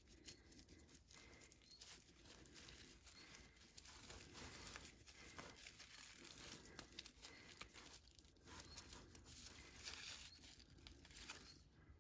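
Faint, irregular crinkling rustle of raffia yarn being worked with a crochet hook, the ribbon-like strand pulled and drawn through stitches.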